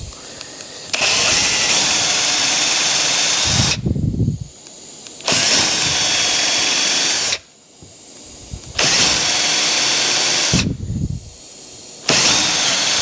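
Cordless drill pre-drilling screw holes into the corners of a wooden door frame, running four times for two to three seconds each with short pauses between.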